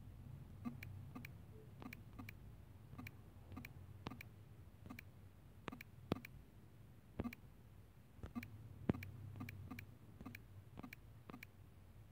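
Key taps on a phone's on-screen keyboard while a word is typed: short, sharp clicks at an uneven pace, one or two a second.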